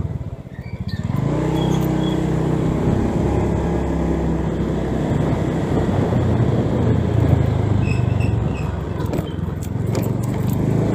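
Motor scooter engine running steadily while riding, with wind and road noise. It dips briefly in the first second, then picks up again to an even drone.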